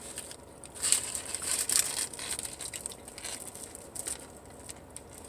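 Food wrapper crinkling in a few short, crackly bursts, with quieter stretches between.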